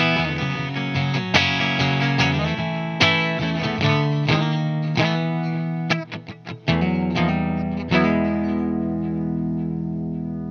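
2010 Fender American Deluxe Stratocaster electric guitar played through a Bogner Ecstasy amplifier: chords struck every second or two, a short run of quick muted, choked strums just past the middle, then a chord held and left ringing as it fades.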